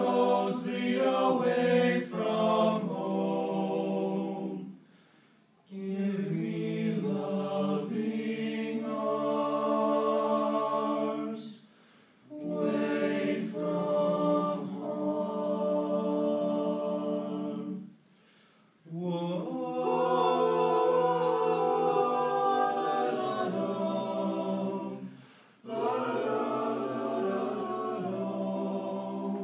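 Male a cappella ensemble of eight voices singing in close harmony, in long held phrases broken by four short pauses.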